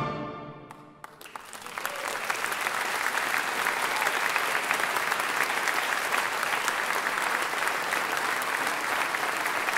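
The wind band's final brass chord dies away in the hall, and about a second in an audience breaks into applause that builds and then holds as steady, sustained clapping.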